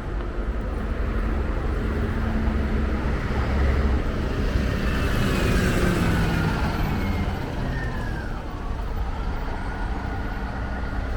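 A motor vehicle passing along the street, its engine rumble and tyre noise building to a peak about five seconds in and then fading, over steady street traffic noise.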